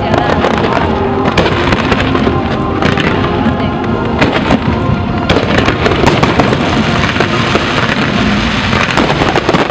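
Aerial fireworks bursting and crackling in rapid, continuous volleys, with music playing alongside.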